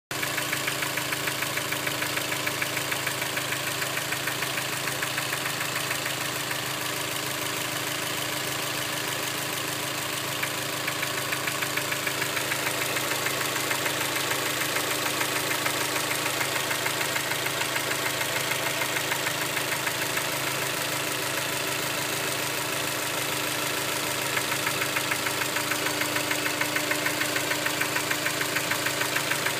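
Engine running at a steady idle with a regular, rapid knock from inside the motor.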